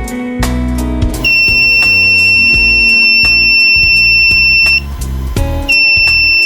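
Breadboard doorbell's electronic buzzer sounding a steady, high-pitched tone for about three and a half seconds, stopping, then sounding again about a second later, over background music.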